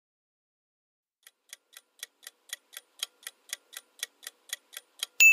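Quiz countdown-timer sound effect: clock ticks at about four a second, starting about a second in and growing louder, then a bright bell ding near the end as time runs out.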